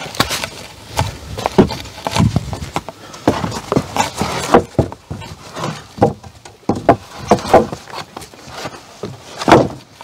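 Lumber boards being handled and stacked onto other boards: irregular wooden knocks and clatters, with one loud knock near the end.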